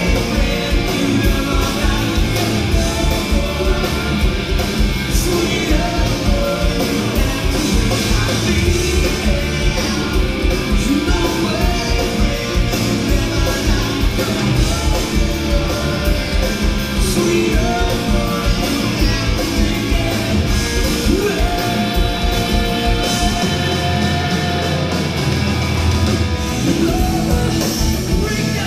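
Rock band playing live: drums, electric guitars and a sung lead vocal, loud and steady. The kick drum drops out for a few seconds near the end.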